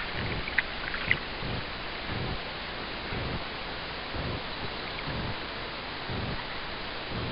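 Water lapping against an inflatable tube on a calm lake, soft uneven slaps about once a second over a steady hiss, with a couple of small ticks about a second in.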